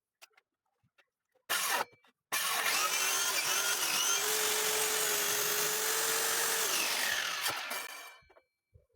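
Circular saw blipped briefly, then run for about five seconds, likely cutting through wood, and winding down after the trigger is released.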